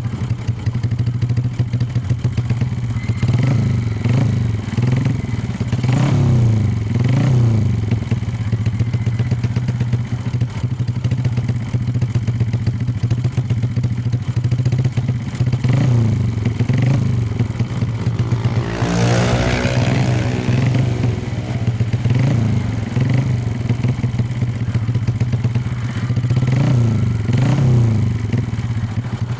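Suzuki Shogun SP 125's single-cylinder four-stroke engine idling through an aftermarket Amphibi silencer, with short throttle blips that rise and fall every few seconds. A brief whoosh passes about two-thirds of the way in.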